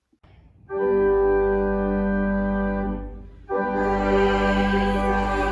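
Organ playing sustained chords: the first starts under a second in and holds steadily, then after a brief break a second chord comes in a little past the middle.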